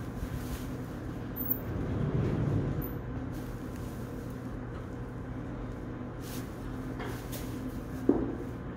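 A newborn foal struggling in straw bedding, ending in a single thump about eight seconds in as it tips over onto its side. A steady mechanical hum runs underneath.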